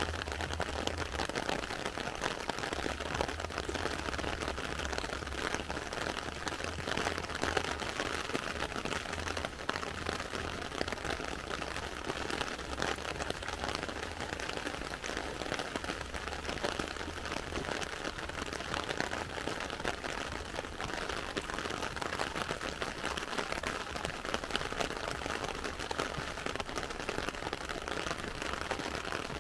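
Heavy rain falling steadily on wet tarmac: a dense, even hiss of drops, with a low rumble coming and going underneath.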